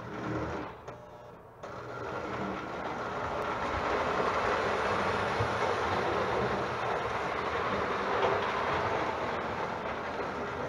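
Postwar Lionel O27 toy train running on three-rail tubular track, with the steady whir and rattle of its motor and wheels. The sound starts about a second and a half in and grows louder over the next couple of seconds as the train gets under way, then holds steady.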